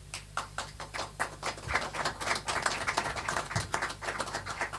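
Audience applauding, a few scattered claps at first that fill in to steady clapping after about a second and a half.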